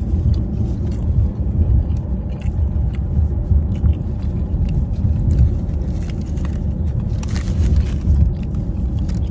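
Steady low rumble of a car in motion, heard from inside the cabin, with a person chewing a mouthful of sandwich and the paper wrapper rustling now and then.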